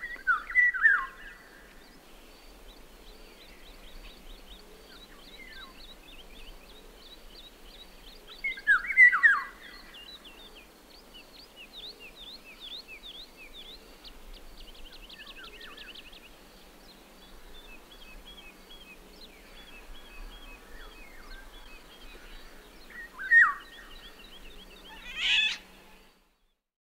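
An oriole singing loud, short, fluty whistled phrases: one at the start, one about nine seconds in and one about 23 seconds in, with a sharper call soon after. Between the phrases, thin high chirps and trills of other small birds go on; all sound stops just before the end.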